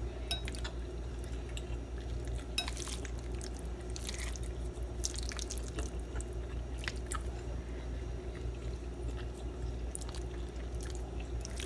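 A plastic fork stirring saucy rotini pasta in a bowl: scattered wet, squishy clicks as the noodles are turned, over a steady low hum.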